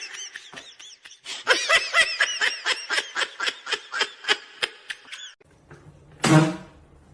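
Rapid, rhythmic laughter, a long run of 'ha-ha-ha' pulses at about four to five a second, breaking off about five seconds in. Near the end comes one short, loud pitched call.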